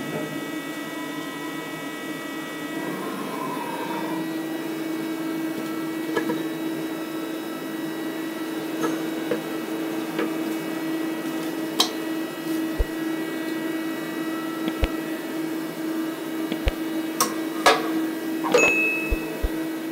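CNC milling machine humming steadily at rest, with scattered light clicks and taps as tangled brass wire from the broken plastic spool is handled, more of them in the second half.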